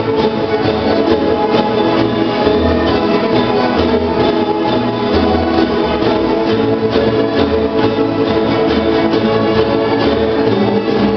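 A large plucked-string ensemble playing a piece together: many guitars and small guitar-like instruments strummed and picked over a walking upright bass line.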